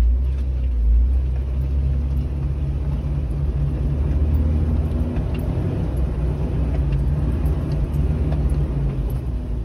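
Jeep's engine pulling steadily up a steep rutted dirt track, a loud low rumble heard from inside the cab, with a few light clicks and knocks over the ruts.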